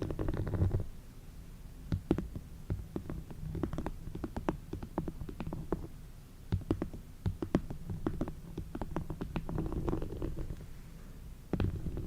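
Close-miked ASMR tapping: many soft, irregular clicks and taps, with a low rumbling brush against the microphone in the first second and again near the end.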